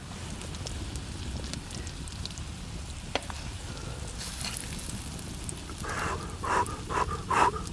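Food sizzling over a wood fire, with scattered sharp crackles and a louder hiss about four seconds in. Near the end, a run of short pitched sounds comes about twice a second.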